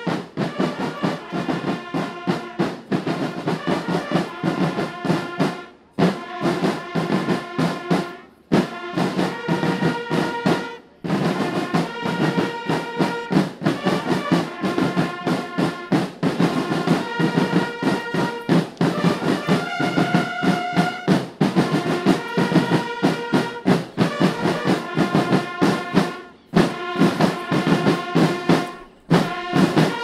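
Military marching band playing: parade snare drums beating a rapid, steady march rhythm under trumpets holding and changing notes. The music stops briefly a few times, then starts again.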